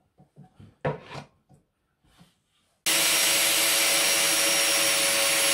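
A few light knocks and clatter of wood and a clamp being handled, then a DeWalt cordless drill runs at one steady speed into clamped plywood for about three seconds, starting and stopping abruptly.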